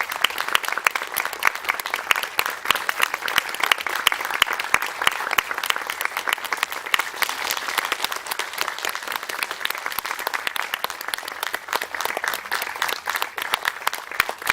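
Audience applauding steadily: a dense, even spray of many hands clapping with no break.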